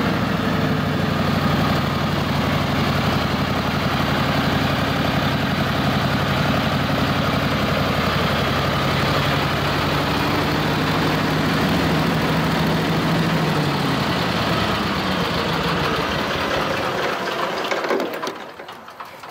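Billy Goat Z3000 stand-on blower's 35 hp Briggs & Stratton engine and fan running steadily at low throttle. About three-quarters of the way through the engine note drops lower, and near the end the engine is shut off and the sound dies away quickly.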